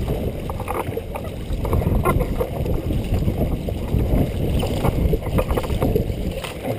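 Dragon boat under way at racing pace: water rushing and splashing against the hull and paddles as the crew strokes.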